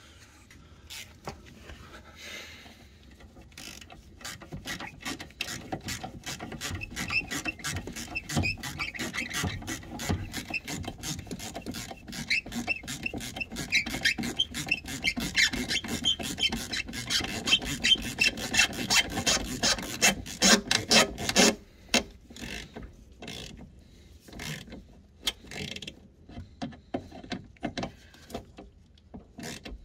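Ratchet spanner clicking rapidly as 10mm bolts are wound in and tightened, a long run of fast even clicks that stops about twenty seconds in, followed by a few scattered clicks.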